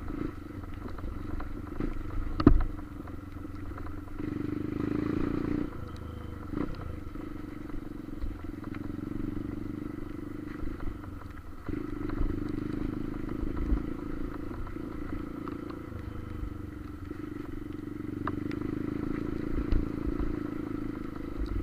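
Motorcycle engine running steadily while riding, its hum swelling for stretches, with a single sharp knock about two and a half seconds in.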